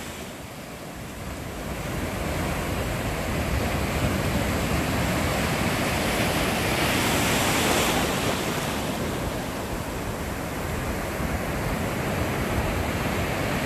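Ocean surf breaking and washing up the beach in a steady rush, swelling louder about midway.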